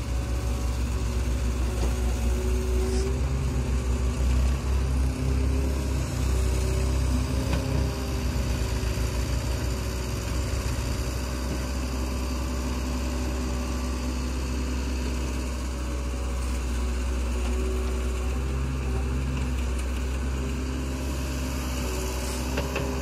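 Diesel engines running steadily: a Swaraj tractor idling close by and an excavator working as it digs. From about three seconds in to about eleven, the low engine sound swells and wavers, then settles back to an even idle.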